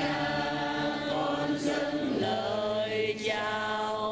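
Choir singing a slow hymn in long held notes, moving to new notes about halfway through.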